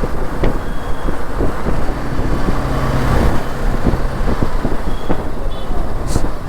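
Steady engine and wind rumble of a BMW G 310 GS single-cylinder motorcycle riding in heavy traffic, with the noise of surrounding vehicles. A brief high beep comes about five and a half seconds in.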